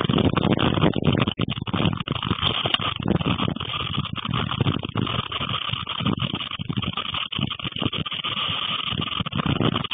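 Strong storm wind and rain heard from indoors through a window: a steady, rushing noise that rises and falls with the gusts, loudest in the first second or so.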